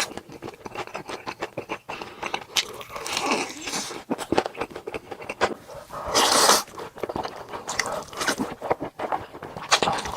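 Close-miked eating sounds: crunching and chewing with wet mouth clicks, and a louder noisy burst about six seconds in.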